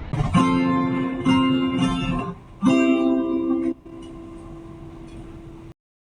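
Acoustic guitar music: three strummed chords, each left to ring, the last fading out before the sound cuts off.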